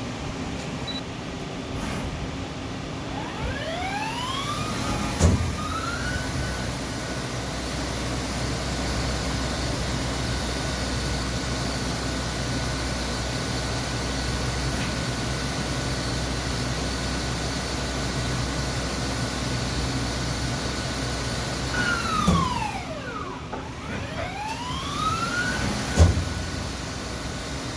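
Okuma LB35 CNC lathe spindle spinning up with a rising whine, then running steadily at speed. Near the end it winds down and spins back up again, with a sharp click each time it settles or changes speed.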